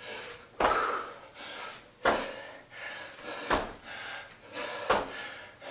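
Feet landing on a hard floor in side-to-side bounding jumps: four thuds about one and a half seconds apart, with hard breathing between them.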